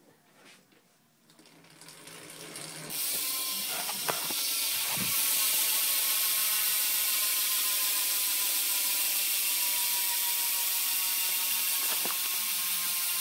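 BMX rear 9-tooth cassette hub freewheeling as the rear wheel spins, its pawls clicking so fast they run together into a loud steady buzz. It starts about three seconds in, with a few knocks just after.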